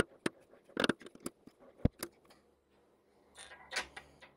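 Irregular sharp metal clicks and knocks, then a short rattling scrape near the end, from a chuck key being fitted and turned in a lathe chuck while a steel bar is dialled in with an indicator.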